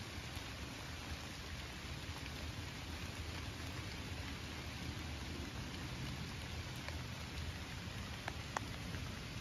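Steady rain falling on the leaves around a tree stand, with a few close drops ticking sharply near the end.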